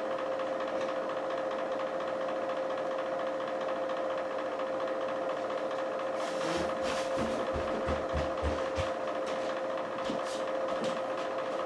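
Rotating countertop pizza oven's turntable motor humming steadily as it turns a quesadilla, with a few light clicks and low knocks around the middle.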